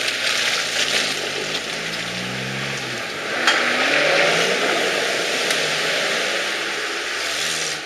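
Off-road 4x4 engine revving under load as the vehicle climbs a muddy slope, the pitch rising about two seconds in and the sound growing louder from about three and a half seconds.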